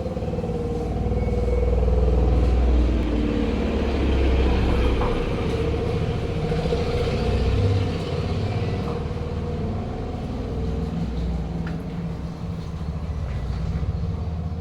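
Steady low rumble of a motor vehicle's engine running, swelling a little a few times.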